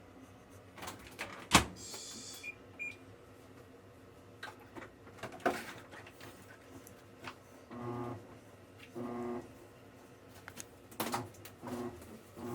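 Washing machine being started: a sharp knock about a second and a half in, two short beeps, then the machine's motor turning the drum in short repeated spurts.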